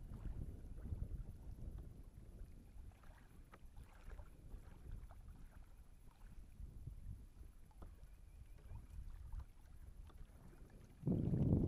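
Wind rumbling on the camera microphone over a kayak on open water, with faint taps of small waves against the hull. About a second before the end, a louder rush of wind noise.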